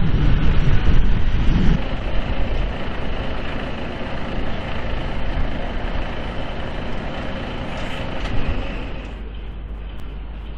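Heavy-haulage truck and multi-axle low-loader trailer passing, a steady engine rumble with tyre noise, loudest in the first two seconds. About nine seconds in it drops to a quieter steady hum.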